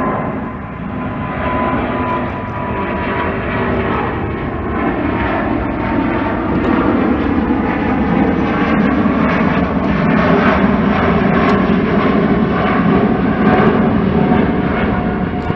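Jet engines of an Air Belgium Airbus A330 climbing out after takeoff, a steady engine noise with a whine that slowly drops in pitch. The low rumble grows louder through the second half.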